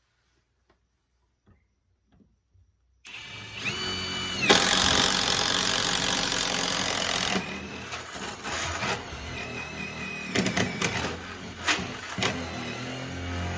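Electric drill starting about three seconds in, its motor whining up to speed and then boring a hole through the wooden bottom plate of a wall, the noise turning uneven with knocks in the second half.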